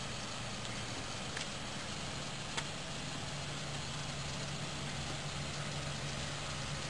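Pickup truck engine idling steadily, with two faint clicks a little over a second apart.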